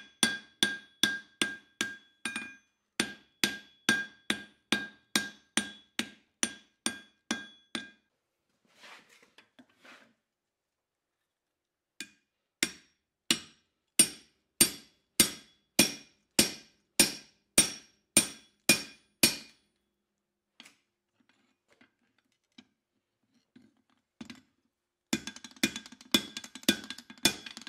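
Hand hammer striking red-hot steel on an anvil while an old hammer head is forged into a hot cut chisel. Each blow rings: a steady run of about two to three blows a second, a pause, then a second run. Near the end there is a quick, dense metallic clatter.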